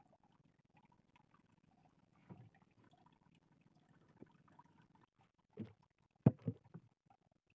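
Faint low background with a few dull knocks, the loudest a quick cluster of three or four near the end, from gear and the camera being handled aboard a small fishing boat.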